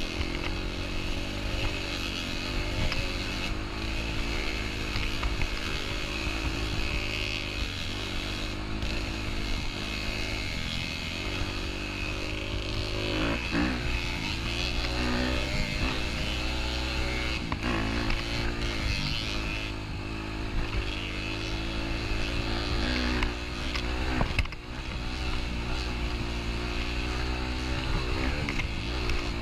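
Motorcycle engine running on the move, its pitch rising and falling as the throttle opens and closes, with a few brief dips in the sound and a steady rushing hiss over it.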